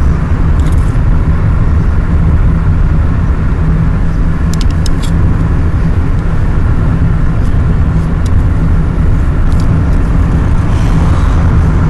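Steady road and engine noise of a moving car heard from inside the cabin: a dense low rumble with a constant hiss, and a few faint ticks about four to five seconds in.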